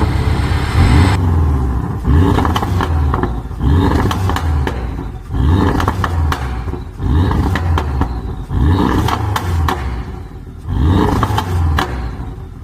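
Porsche 718 Boxster GTS's turbocharged flat-four blipped about seven times, one every second and a half or so. Each blip falls away into a string of exhaust pops and crackles on the overrun, from a pop-and-crackle engine tune.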